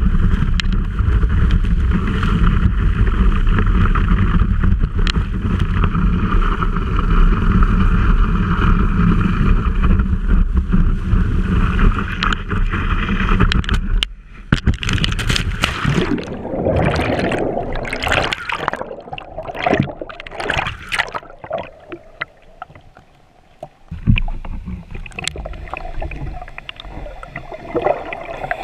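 Water rushing against a wakeboard-mounted GoPro housing while the board is moving, a loud steady rush with a deep rumble. About halfway through it stops abruptly and gives way to uneven sloshing and gurgling as the board sits in the water, with the camera dipping under near the end.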